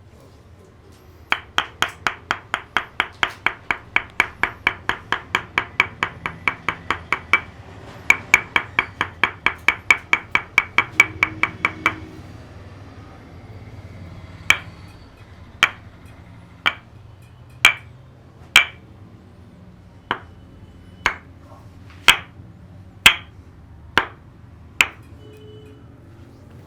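Tok Sen wooden mallet striking a wooden wedge: two runs of quick, even taps about four a second with a short break between them, then slower single knocks about one a second. Each knock is sharp and rings briefly.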